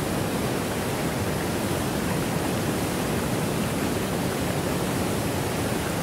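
Waterfall rushing: a steady, even sound of falling water with no rise or fall.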